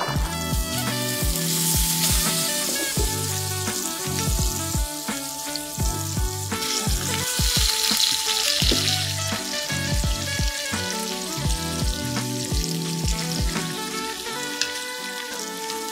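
Salmon steaks sizzling steadily in hot oil and melting butter in a stainless steel frying pan, with background music playing.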